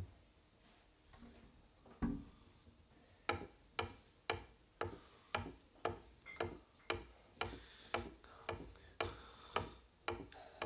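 Sharp percussive clicks in a steady beat, about two a second, beginning about three seconds in after a single knock, played as part of a free improvisation.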